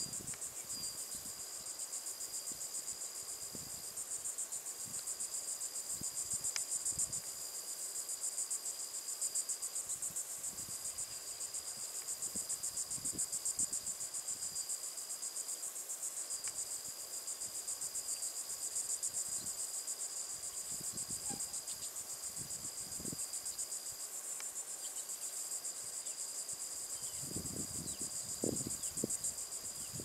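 Insect chorus trilling steadily: a dense, high, rapidly pulsing buzz, with a second steady high tone that drops out briefly every few seconds.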